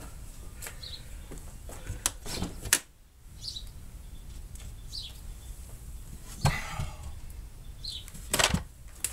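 Scattered knocks, clicks and a short rattling scrape from hand work on the rear of a car, with faint high chirps in the background.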